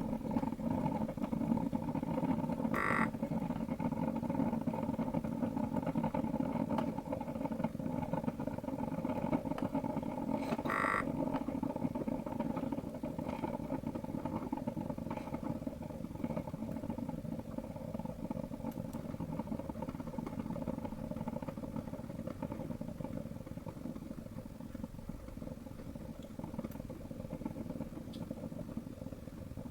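Panasonic NC-A58 coffee maker running with an abnormal buzzing, vibration-like hum, a fault whose cause the manufacturer could not find. The hum is steady and fades slowly toward the end, with two short higher chirps, one about three seconds in and one about eleven seconds in.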